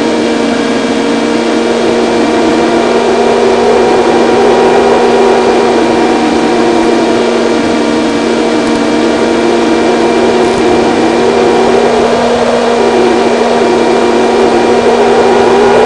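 Electric motor and propeller of a LiPo-powered FPV model airplane running steadily in flight, heard from a microphone on board: a constant pitched hum with a wavering rush of wind over the airframe.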